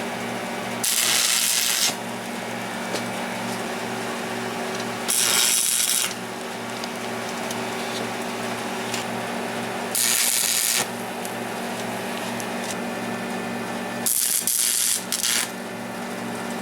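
A welder humming steadily, with four short bursts of welding-arc hiss, each about a second long, as a spacer is welded onto the clutch part.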